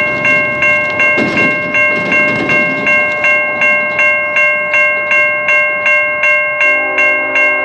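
Railway grade-crossing warning bell ringing at a steady pace of about three strikes a second, warning of an approaching train. About a second before the end, the approaching locomotive's horn starts sounding a steady chord under the bell.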